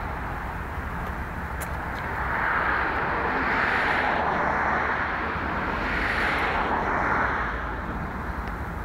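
Outdoor road traffic noise: a steady rush of vehicles that swells twice, as if cars are passing by.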